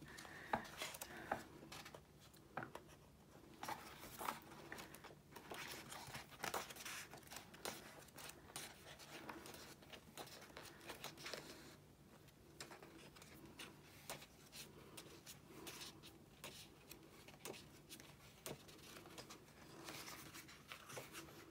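Paper pages of a hardcover book being turned by hand: faint, scattered rustles and soft flicks of paper.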